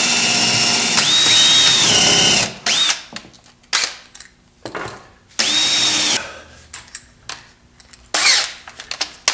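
Cordless drill with a countersink bit boring counterbore holes into pine. The motor runs with a steady whine for about two seconds, its pitch jumping as the trigger is squeezed and dipping as the bit cuts. It runs again briefly twice, with knocks between the runs.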